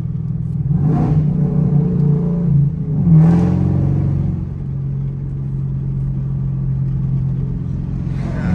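Chevrolet Camaro SS 6.2-litre V8 engine while driving: the revs climb twice, about a second in and again around three seconds in, then settle into a steady cruising drone.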